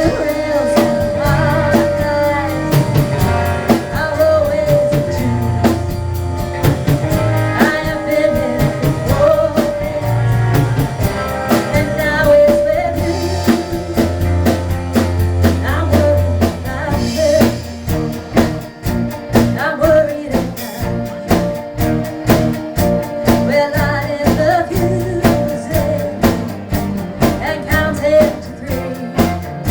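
Live band playing a country-rock song, with guitars and a drum kit keeping a steady beat.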